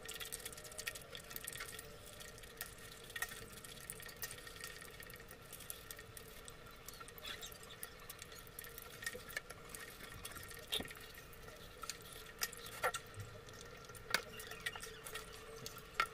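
Faint, wet mouth clicks and smacks of someone chewing and eating pieces of fried chicken in spicy sauce close to the microphone. The clicks come irregularly, with a few louder ones in the second half, over a faint steady hum.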